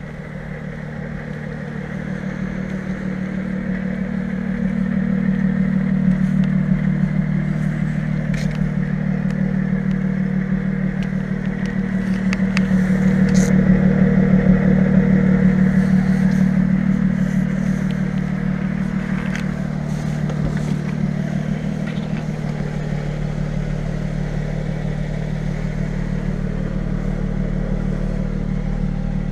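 Lotus Exige S V6 Roadster's supercharged 3.5-litre V6 idling steadily. It grows louder around the middle, close to the single centre exhaust tailpipe, then settles back.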